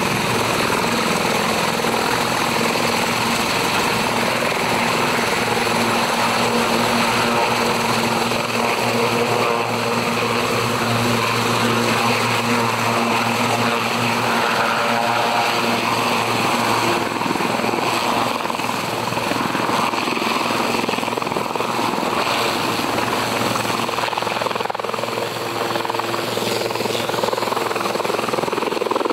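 Air ambulance helicopter's turbine engines and rotors running at lift-off power, a steady loud drone with a low hum, as it lifts off the helipad, hovers and climbs away.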